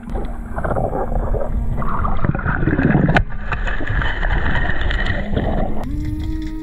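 Muffled underwater rushing and gurgling of water around a camera moving along the seabed, with a sharp knock about three seconds in.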